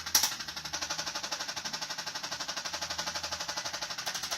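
Handheld chiropractic adjusting instrument firing rapid repeated taps, about a dozen a second in a steady run, with one sharper click about a quarter second in.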